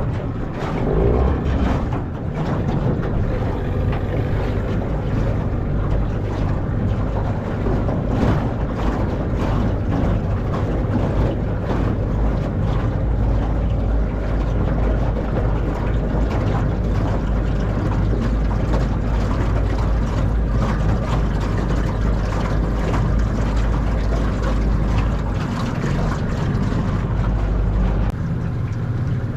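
Outboard motor of an aluminium tinny running steadily underway, with a little wind on the microphone; the sound drops slightly about a second before the end.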